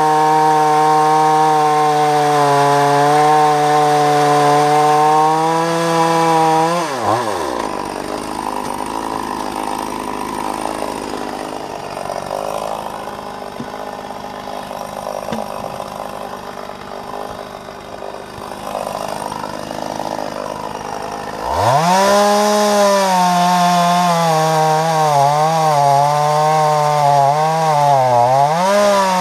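Husqvarna 44 two-stroke chainsaw running at full throttle through a log, then dropping sharply to a low idle about seven seconds in. Some fourteen seconds later it is revved straight back up and cuts again, its pitch dipping and recovering several times as the chain bogs under load near the end.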